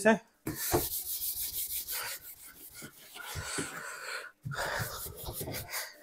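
Wet cloth wiping and rubbing over the soapy plastic body of a semi-automatic washing machine in repeated scrubbing strokes, with a short break about four seconds in.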